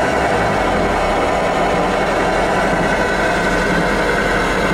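Tracked excavator's diesel engine running steadily, heard from inside the cab, with its low hum shifting right at the start.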